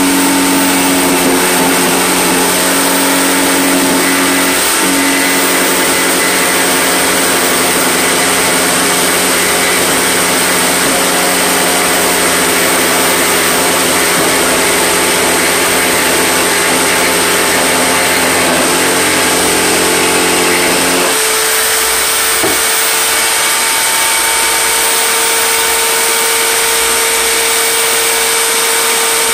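Power tool running under a shop-built table, a loud steady motor whine with hiss, while boards are fed past its cutter. About 21 seconds in the deeper hum drops away and one higher steady tone carries on.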